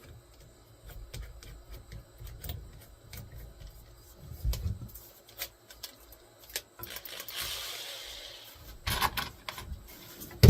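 Scattered clicks, clatter and knocks of tools, screws and wood being handled, with a short hiss about three-quarters of the way in and a loud knock at the very end.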